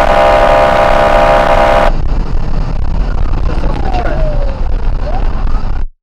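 Police car horn sounding in one long steady blast for about the first two seconds, then engine and road noise with a faint falling siren wail. It cuts off abruptly near the end.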